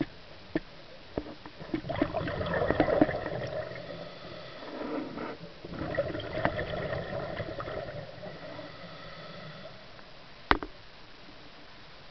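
Underwater recording of a scuba diver's exhaled bubbles gurgling and rumbling out of the regulator in two long breaths, with scattered small clicks and one sharp click about ten and a half seconds in.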